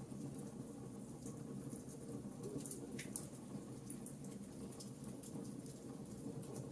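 Fire burning in a fireplace, crackling: irregular sharp little pops and ticks over a steady low rumble of the flames.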